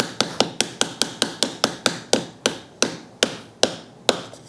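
Rapid light taps of a small soft-faced hammer on the wood, driving a tight hand-cut dovetail joint together. The taps come about five a second, then slow and space out as the joint seats fully, and stop near the end.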